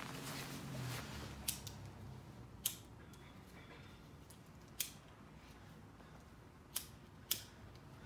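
Leather tool roll being handled and its pockets felt: quiet rubbing of the leather broken by about six short, sharp clicks at irregular intervals.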